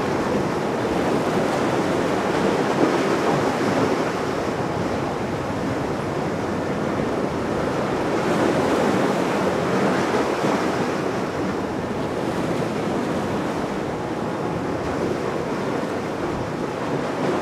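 Steady rush of wind and waves, with wind buffeting the microphone.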